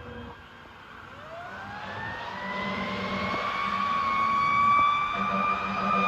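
Fire engine siren winding down to its low point, then from about a second in winding slowly back up and levelling off at a high steady pitch, growing louder throughout.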